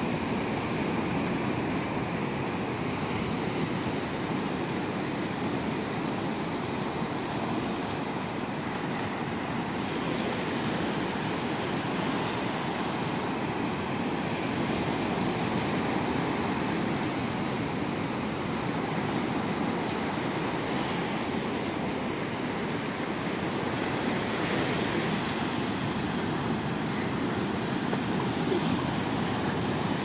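Ocean surf washing onto a rocky beach: a steady rushing wash that swells a little a couple of times as waves break.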